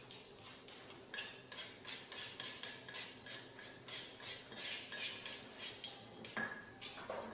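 Pestle grinding spices in a stone mortar (cobek and ulekan), with short scraping strokes repeated about two to three times a second.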